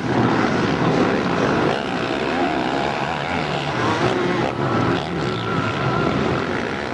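Several motocross bikes' engines revving hard on the track, their pitch rising and falling as the riders open and close the throttle.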